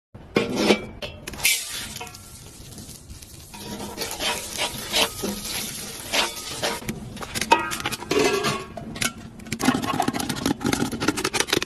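Metal ladle clanking and scraping against a wok as corn kernels are stirred in hot oil, with a light sizzle.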